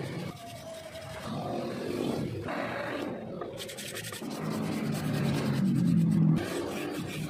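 Hand-sanding a flat steel axe head with sandpaper: repeated back-and-forth scratchy rubbing strokes, taking the paint off the steel, louder for a while about five to six seconds in.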